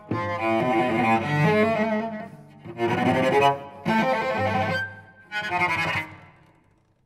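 Solo cello, bowed: a run of strong notes broken by brief gaps, the last one dying away just before the end.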